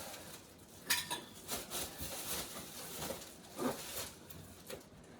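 Handling noises of unboxing: a sharp click about a second in, then scattered light knocks and scrapes of packaging being moved about.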